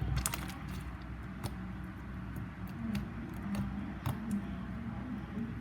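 Slime being handled, giving scattered sticky clicks and small pops.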